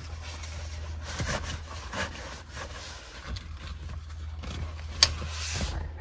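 Hands rubbing and scraping against the leather rear bench seat and the harness buckles as they are set in place, with small knocks and one sharp click about five seconds in, over a steady low hum.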